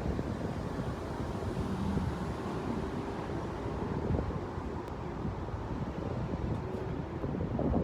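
Wind buffeting the microphone: a continuous, uneven low rumble with no tone.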